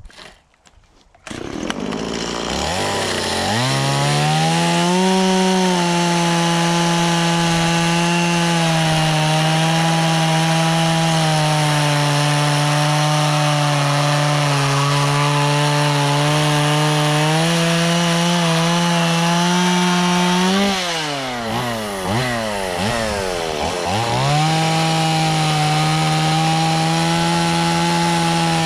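Stihl two-stroke chainsaw starting about a second in and revving up to full throttle, its pitch sagging slightly while the chain cuts into redwood. About two-thirds through it drops back and is blipped up and down a few times, then holds full throttle again.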